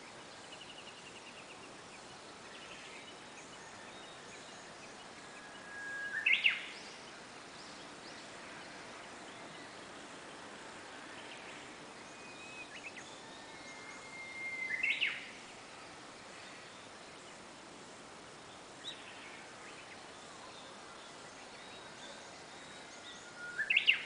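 Japanese bush warbler (uguisu) singing its 'hoo-hokekyo' song three times, about nine seconds apart. Each song is a held whistle that breaks into a quick, louder rising flourish.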